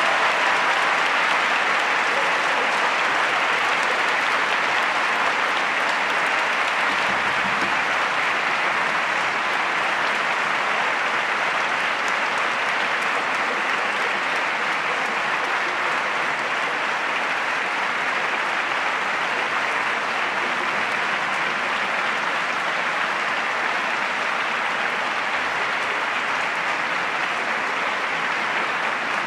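A large audience applauding steadily, the clapping easing off slightly toward the end.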